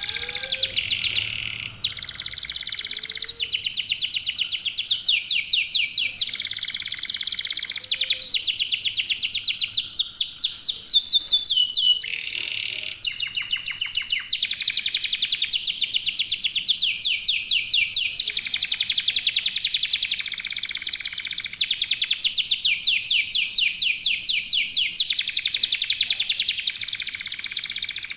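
Local domestic canaries singing long, rapid trills and rolls, several birds overlapping, with only brief breaks about 2 and 13 seconds in.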